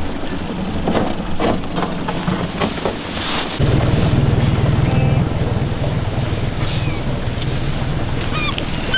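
Boat motor running as the boat travels across open water, with wind buffeting the microphone. The low rumble becomes much louder about three and a half seconds in.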